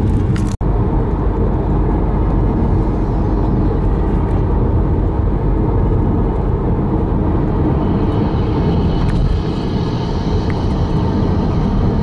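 Car driving along a highway, heard from inside the car: steady road and engine noise. It cuts out for an instant about half a second in.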